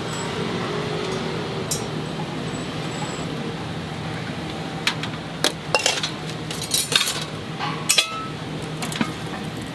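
Metal utensils clinking and tapping against a metal egg-cake mold and pots, a cluster of sharp clinks in the second half over a steady background hum.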